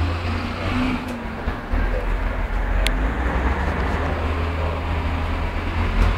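Bus engine running with a steady low rumble, heard inside the bus, and one sharp click about three seconds in.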